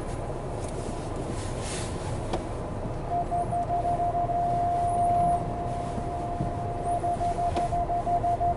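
Low, steady rumble of the Jeep Renegade Trailhawk's 2.0-litre diesel and tyres, heard from inside the cabin as it creeps down a rutted track. From about three seconds in, a high electronic warning beep joins it: first in quick pulses, then held as one steady tone, then pulsing again near the end.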